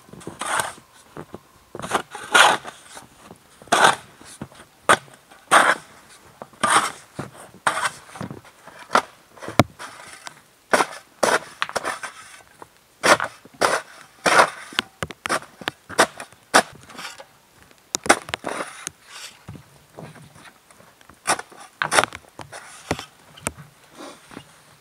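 Snow being cleared by hand: a snow shovel scraping and scooping through packed snow, then hands scooping and crunching snow and frozen soil, in irregular strokes of scraping and crunching.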